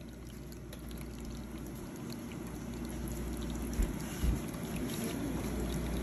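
Cat water fountain in faucet mode: a thin stream of water pouring steadily and splashing onto the raised platform into the water-filled bowl. Two soft low thumps about four seconds in.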